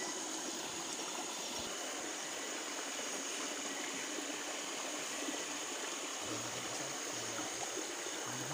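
Steady rush of running water in a shallow stream.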